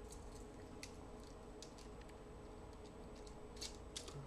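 Faint, scattered light clicks and taps of Swiss Army pocketknives being handled and laid one on top of another, over a low steady room hum; a slightly louder pair of clicks comes near the end.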